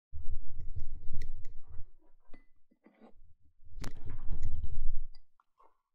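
Low rumbling handling noise from a handheld action camera being moved about, in two stretches, with scattered clicks and taps.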